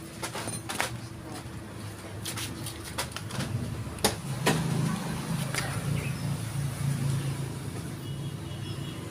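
Kia Avella engine starting about three and a half seconds in after a few clicks, then idling steadily through its newly fitted muffler.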